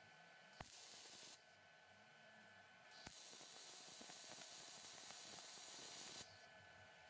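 MIG welder arc hissing as a steel rod is welded to a brake pad's steel backing plate: a short tack lasting under a second, then a steady run of about three seconds that stops near the end.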